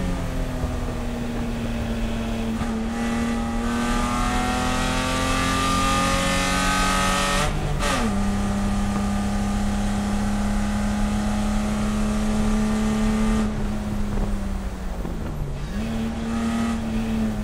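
Spec E30 race car (BMW E30) straight-six engine pulling under load, its note climbing slowly, then dropping sharply at an upshift about eight seconds in. The note holds steady, sags as the throttle comes off around fourteen seconds, comes back up, and falls away again near the end.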